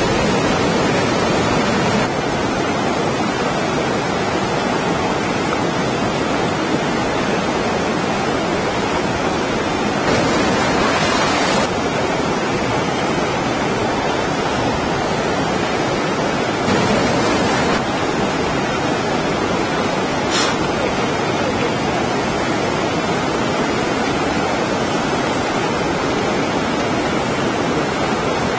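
A steady, loud rushing noise with no pitch to it, swelling briefly about ten seconds in and again a little later, with a short tick near the twenty-second mark.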